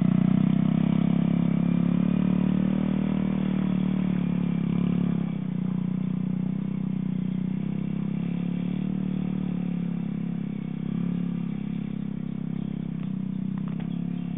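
Small engine of a homemade self-propelled paddy sprayer running steadily, growing gradually fainter as the machine moves away.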